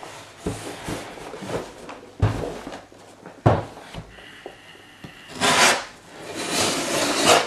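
Cardboard mailing box handled and shifted on a table: a few short knocks, then two longer scraping rustles in the last two seconds.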